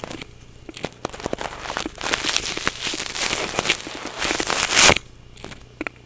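Loud, distorted crackling and scratching picked up by a Logitech webcam's built-in microphone, many clicks in a row, that stops suddenly about five seconds in. Underneath runs the steady low hum the webcam records.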